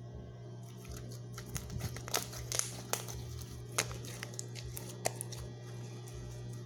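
Homemade slime being squeezed and worked by hand, giving scattered sharp clicks and crinkly crackles, thickest in the middle, over a steady low hum.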